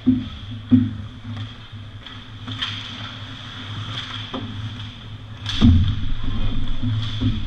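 Ice hockey play close to the microphone: skates on the ice and sharp knocks of sticks and puck, with heavy thumps at the start, just under a second in and loudest about five and a half seconds in, over a steady rink hum.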